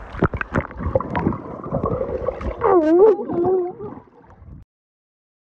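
Water sloshing and knocking around the microphone as it is dunked underwater. About halfway through comes a muffled, wavering voice-like tone of about a second. The sound then cuts off to total silence.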